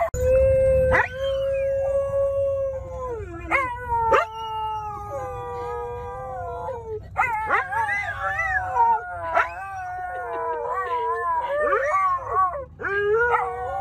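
Dog howling in a moving car: a long, steady howl first, then a run of howls that waver up and down in pitch, over the low rumble of the car.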